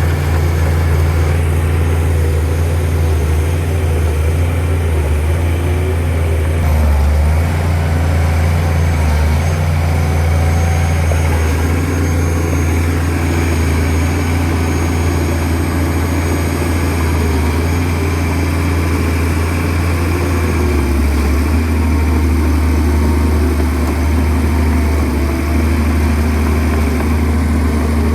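Shantui DH17C2 crawler bulldozer's diesel engine running steadily with a low drone, its pitch shifting slightly a couple of times as the load changes.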